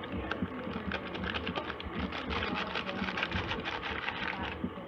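Crinkling and rustling of a paper pouch of powdered dessert mix as it is squeezed and shaken out into a plastic bowl. Dense, fast crackling builds about two seconds in and stops shortly before the end.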